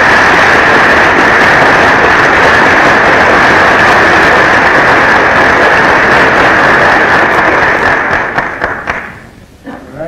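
Large audience applauding: a dense, steady clatter of many hands clapping that fades out about eight to nine seconds in.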